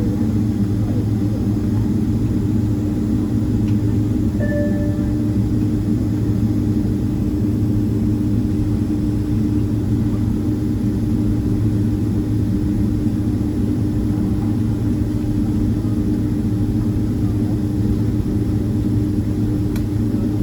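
Boeing 767-300ER cabin: a steady drone of the jet engines and airflow with a constant low hum, heard from inside the passenger cabin. A short single beep sounds about four and a half seconds in.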